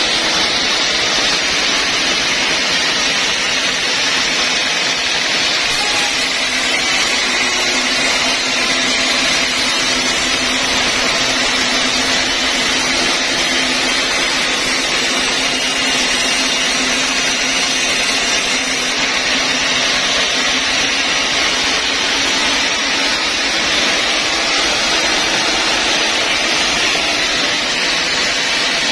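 Band sawmill's blade running through a log in one long continuous cut: a loud, steady rushing noise with a faint low hum beneath it.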